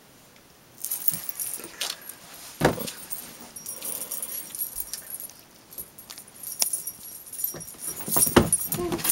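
Small metal pieces jingling and rattling on and off, with scattered knocks, one sharp knock about two and a half seconds in, and busier, louder rattling near the end.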